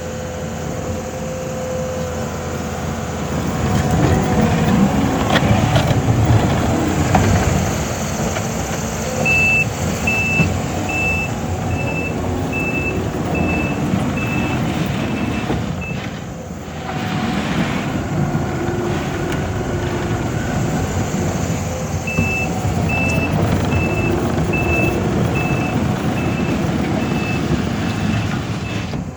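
Takeuchi TL12-R2 compact track loader working: its diesel engine runs steadily, louder for a few seconds early on. Its reversing alarm sounds twice, each time as a run of evenly spaced high beeps lasting several seconds while the machine backs up.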